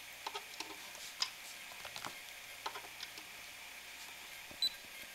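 Small clicks and scrapes of multimeter test probes being handled and pushed into an inverter's AC outlet, a handful of light ticks spread unevenly, with one short beep near the end. A faint steady high whine runs underneath.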